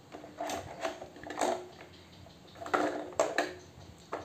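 Small plastic toy pieces clattering and knocking against the plastic bed of a toy dump truck as a child's hand moves them about, in a few uneven bursts of clicks and rattles, the busiest about three seconds in.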